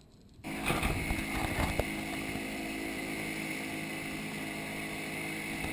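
Motorboat running at speed: a steady engine drone under the rush of water and wind, starting about half a second in, with a few knocks of the hull early on.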